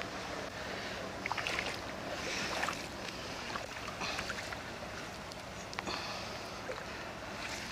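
River water lapping and splashing at the bank, with several small irregular splashes over a steady rushing background.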